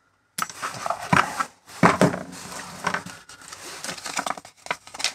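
A paper instruction leaflet and cardboard packaging being handled and unfolded, rustling and crinkling with a few sharper knocks. It starts after a brief silence.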